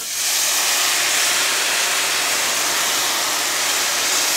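Chicken broth poured into a hot skillet of rice toasted in butter, hissing and sizzling loudly as the liquid hits the hot pan. It starts suddenly and stays steady.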